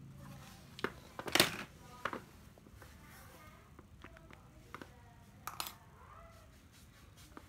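A few sharp hard knocks and clicks of cordless drills being handled and set down on a surface. The loudest knock comes about a second and a half in, with a pair more a little past the middle.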